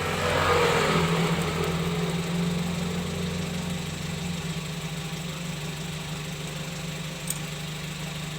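An engine fitted with a clip-on fake turbo whistle exhaust tip is revved briefly in the first second or so, then settles back to a steady idle.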